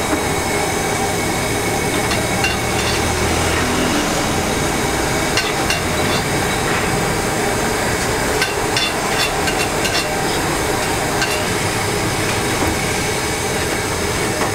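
A metal scraper knocking and scraping against a large stainless steel bowl as thick dough is worked out of it, in scattered short clinks, over steady street traffic noise.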